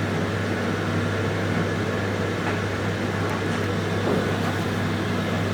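Sharp 8 kg condenser tumble dryer running: a steady, even whir of motor and fan over a constant low hum.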